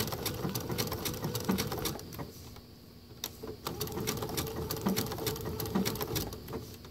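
Electric sewing machine stitching: a steady motor hum with rapid needle clicks. It stops about two seconds in and starts again about a second and a half later.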